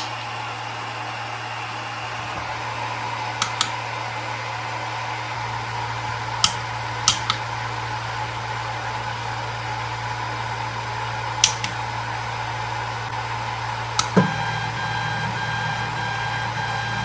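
TronXY P802 3D printer humming steadily with its fans running, with several sharp clicks of its menu buttons. About 14 seconds in, after a knock, the Z-axis stepper motors start driving and add a steady high whine.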